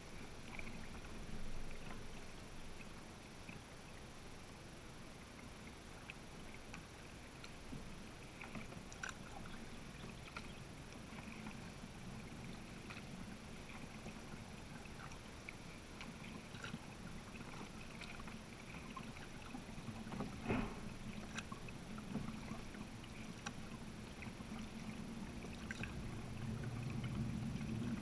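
Kayak paddling: the paddle blades dip and water drips and laps at the hull in soft, scattered splashes, with one sharper knock about twenty seconds in and a low rumble building near the end.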